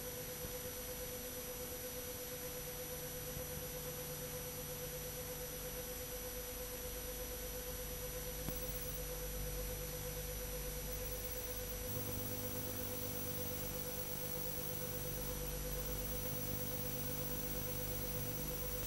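Steady pure electronic tone over constant hiss, the noise of an old video recording's audio track; a low hum joins about twelve seconds in.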